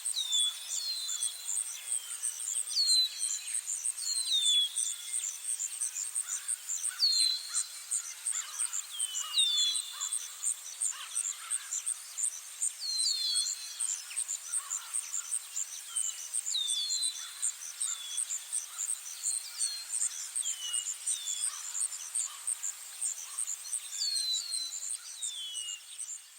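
Outdoor nature ambience: a high, steady, fast-pulsing insect trill, like crickets, runs throughout, while a bird repeatedly gives short whistled calls that slide downward, often two in quick succession, every second or two.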